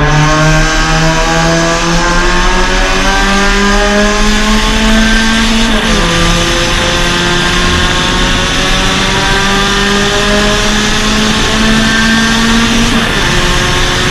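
Suzuki Swift Sport race car's 1.6-litre four-cylinder engine accelerating hard, its pitch climbing steadily and dropping sharply at two upshifts, about six seconds in and near the end. Tyre and wind noise runs underneath.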